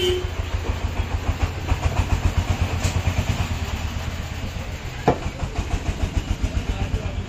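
An engine running steadily nearby, a low rumble with a fast, even throb. A sharp knock about five seconds in.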